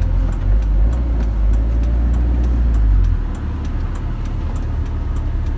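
Car driving on a mountain road, heard from inside the cabin: a steady low rumble of engine and road noise that eases off about three seconds in, with a faint regular ticking a few times a second.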